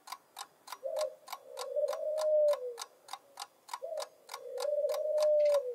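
Ticking-clock sound effect, a countdown timer for a guessing game, ticking about four times a second. A steady tone about two seconds long sounds twice alongside it.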